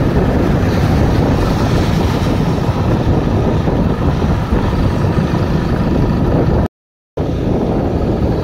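Wind rushing over the microphone while riding along a wet road, with vehicle engine and tyre noise underneath, steady and loud. The sound drops out completely for about half a second near the end.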